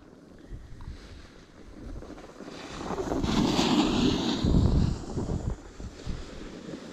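Snowboard sliding and scraping over packed snow as a rider passes close by: a rushing hiss that swells up in the middle and fades away again.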